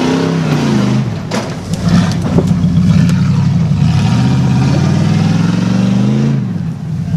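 Off-road competition truck engine revved hard and let off in surges: the pitch drops about a second in, climbs again from about four seconds and falls away near the end. There are a few sharp knocks in between.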